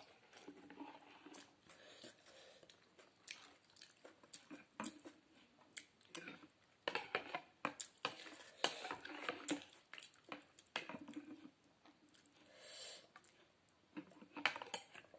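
Close-up eating sounds of a person eating noodle soup: chewing and wet mouth noises with scattered sharp clicks, busiest from about seven to ten seconds in.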